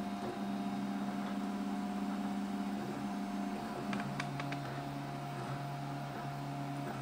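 Prusa i3-style 3D printer running a print: stepper motors humming at steady pitches, the note dropping lower partway through as the moves change, over the steady whir of the hotend cooling fan. A few light ticks come about four seconds in.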